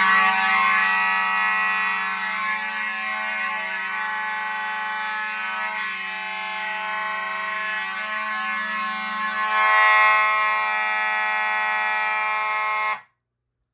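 Fire alarm system horns, among them a Simplex 4903-9219 horn-strobe and a Notifier NH100 horn, sounding together in alarm after a manual pull station is pulled. The sound is a steady, continuous, loud horn tone that cuts off suddenly about 13 seconds in.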